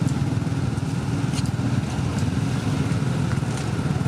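A heavy diesel truck engine running steadily with a low drone, with a few faint clicks over it.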